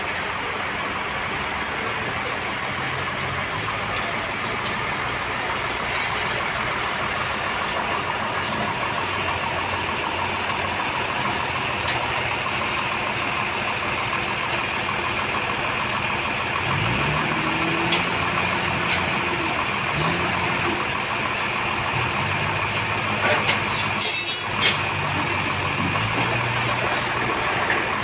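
Toyota forklift engine running under the load of a heavy log, idling and revving up several times in the second half, with a few sharp knocks.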